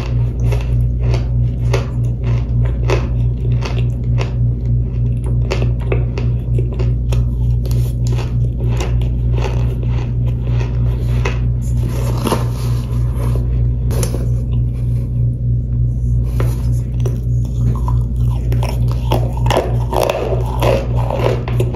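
Someone biting, crunching and chewing toasted powder chunks: a continuous run of sharp, crisp crunches, several a second, over a steady low hum.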